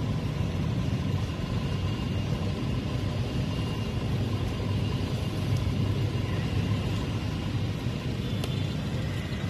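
Steady low rumble of road traffic, motor vehicles running.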